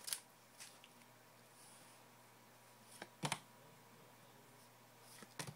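Quiet room with a few soft clicks of glossy trading cards being flipped through by hand: two about three seconds in and two more near the end.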